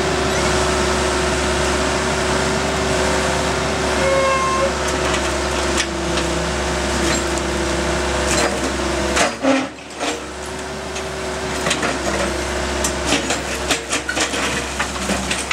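A steady mechanical hum, like an idling engine, that drops out briefly about two-thirds of the way in. Near the end there is a run of sharp clicks and knocks.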